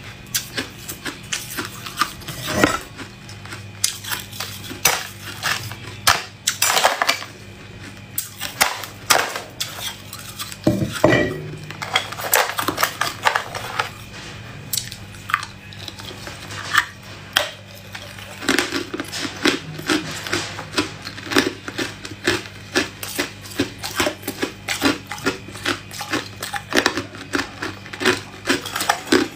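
Hard ice being bitten and chewed up close: a rapid run of sharp crunches and cracks, coming thickest and fastest in the last third.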